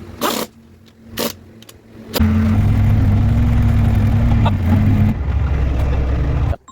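Kubota V2203 four-cylinder diesel engine of a Bobcat S130 skid-steer, running loud and steady after a couple of short clicks. It starts abruptly about two seconds in, its note drops lower about five seconds in, and it cuts off suddenly near the end.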